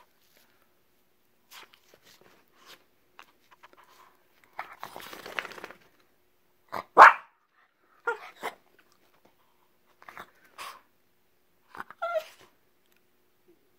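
Small long-haired dog barking in short, scattered barks during play, the loudest about seven seconds in.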